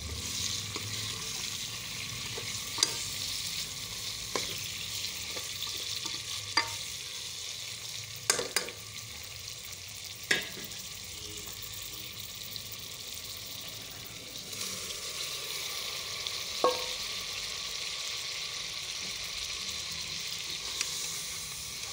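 Goat meat sizzling steadily in hot oil in a metal pot, with the spatula knocking against the pot about six times as the meat is stirred.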